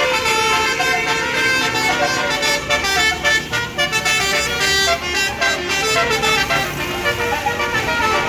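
Tour bus's Basuri telolet horn playing a melody of quickly changing notes.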